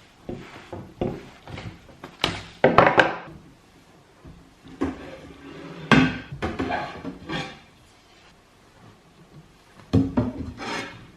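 Household objects being handled: a series of irregular knocks and clatters with some scraping and rubbing, the loudest about two to three seconds in, about six seconds in and near the end.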